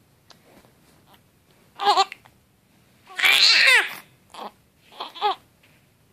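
Newborn baby fussing and crying, upset by hiccups: a short cry about two seconds in, a longer wail falling in pitch a second later, then three short cries near the end.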